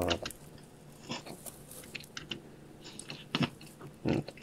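Chinchillas chewing and crunching dry food: a scatter of small crunches and clicks, with a couple of louder knocks near the end.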